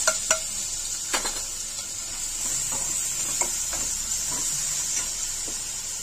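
Crushed ginger, garlic and green chilli paste sizzling in hot oil in a non-stick kadhai, with a steady hiss, while a metal spatula stirs it, scraping and clicking against the pan; the sharpest strokes come in the first second or so.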